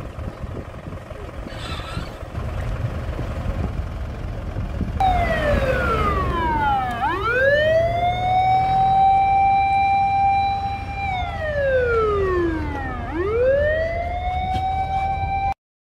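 Fire engine siren sounding a slow wail over the low running of the truck's engine, starting about a third of the way in. Its pitch slides down for about two seconds, sweeps back up and holds a steady tone for a few seconds, then slides down and climbs again. The sound cuts off abruptly near the end.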